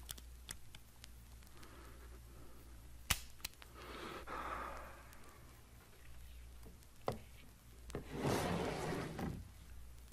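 A 1963 stereo LP playing a comedy sound-effects scene: a man's heavy breathing and sighs, with two sharp clicks, the louder one about three seconds in and another about seven seconds in, over a steady low hum.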